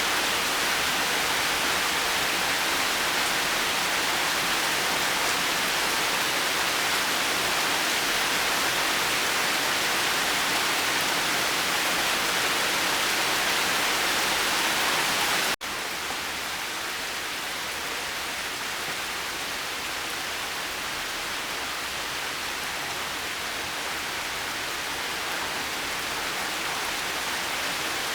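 Steady, even rainfall. About halfway there is a momentary break, after which the rain is slightly softer and duller.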